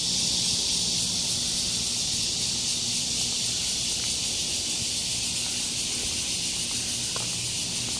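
Chorus of cicadas shrilling in the trees: a steady, unbroken high-pitched hiss, really intense.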